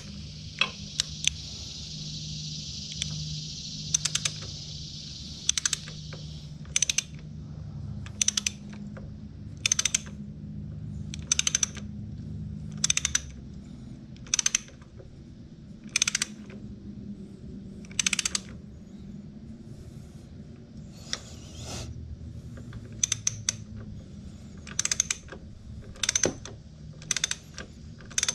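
Ratchet wrench clicking in short runs every second or two as a bolt is tightened. A steady hiss runs under the first six seconds or so.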